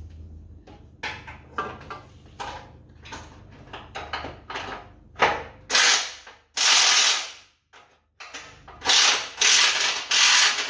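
Cordless impact wrench hammering in several short bursts, about half a second to a second each, from a little past halfway, undoing a lower control arm bolt while a spanner holds the nut. Before the bursts come light metallic clicks and knocks as the tools are fitted.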